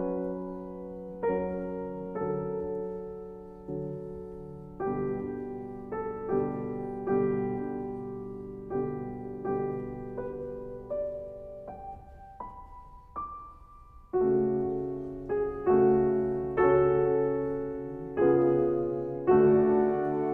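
Slow, gentle piano music: soft chords struck about once a second and left to fade, thinning to a few single notes midway before fuller chords return.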